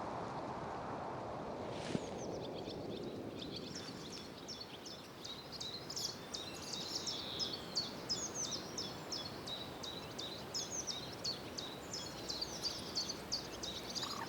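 Small birds chirping in many quick, high calls that start about two seconds in and keep going, over a steady outdoor background noise. There is a single click just before the chirping begins.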